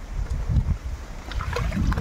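Wind buffeting the microphone, an uneven low rumble, with a few faint clicks in the second half.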